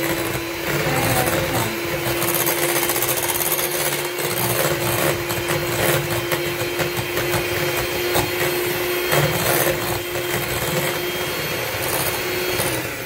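Electric kitchen mixer running steadily at one speed, mixing the cake cream, with a steady whine; switched off near the end.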